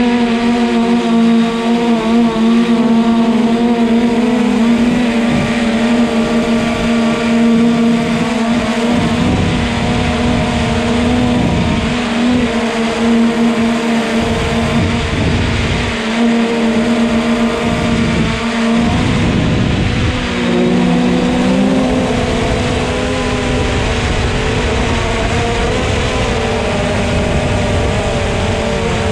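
A camera drone's electric motors and propellers hum steadily in flight, the pitch dipping briefly about two-thirds of the way in. Low rumbles of wind on the microphone come and go.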